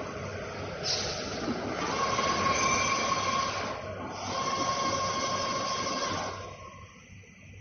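Plastic pallet welding machine running: a steady mechanical noise with a high whine, which dies down about six and a half seconds in.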